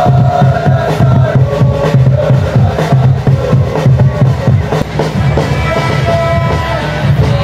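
Football supporters in the stand singing a chant together over a steady, loud drum beat.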